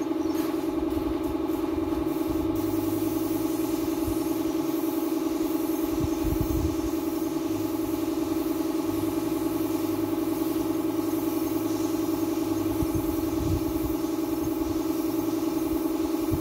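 Air compressor running steadily, a constant machine hum, feeding a paint spray gun. The hiss of air from the gun joins about two seconds in.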